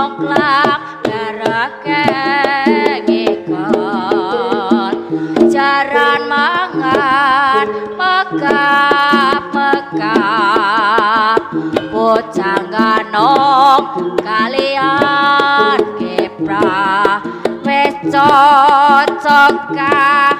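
Javanese gending Ponorogoan (Ponorogo-style gamelan music) with busy kendang drumming under a high melody whose long held notes waver with strong vibrato.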